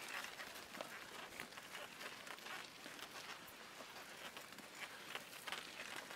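Faint, irregular footsteps and cattle hoof steps on a dry dirt road, as a person walks behind a small herd of cattle.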